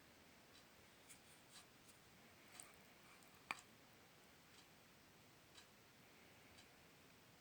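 Near silence with faint ticking about once a second, a few soft clicks, and one sharper click about halfway through.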